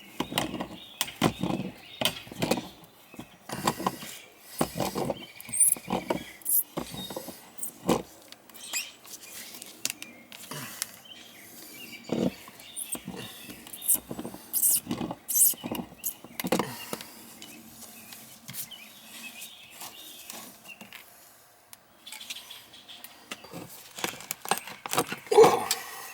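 Irregular metal clinks, knocks and scrapes of hand tools working loose the fittings of a split outdoor shower valve, with a louder knock near the end.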